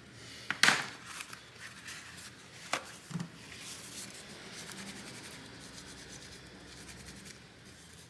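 Hands handling tools on a workbench, with a sharp scrape about half a second in and a click near three seconds, then a soft, steady rubbing as a tissue wipes the bare GPU die of a graphics card clean.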